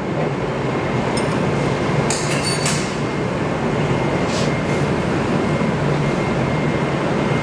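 A steady, loud rushing noise with a low hum under it, and a few light clicks about one, two and four seconds in.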